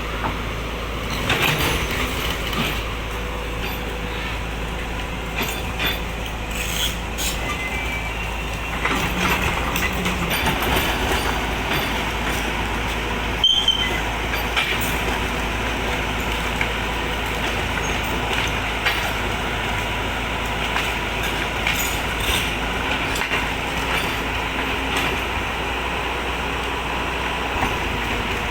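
Excavator engine running steadily under load as it pushes tree branches, with scattered sharp cracks and knocks; the loudest crack comes about halfway through.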